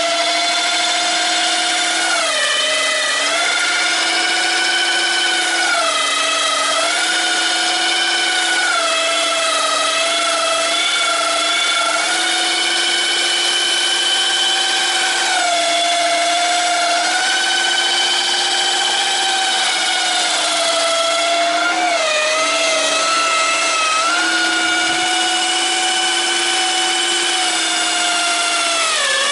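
Electric drill running without a break, spinning a homemade hone inside the bore of an IZh Jupiter-4 motorcycle cylinder to grind it out. The motor's whine sags in pitch every few seconds as the hone bears down on the bore, then picks back up.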